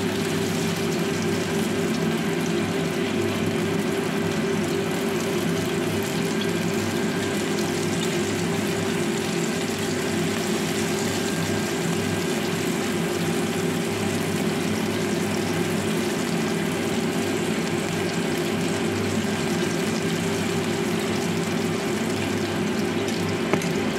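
Chicken wings frying in shallow oil in a nonstick wok, a steady sizzle, over a steady low machine hum.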